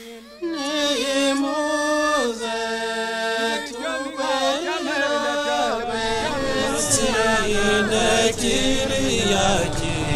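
Chant-like singing: a melody in held notes that step up and down, starting about half a second in. A low rumble builds underneath it from about six seconds.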